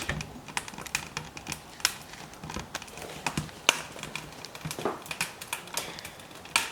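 Wood fire crackling in a Rizzoli ML80 wood cookstove, irregular sharp snaps and clicks, several a second.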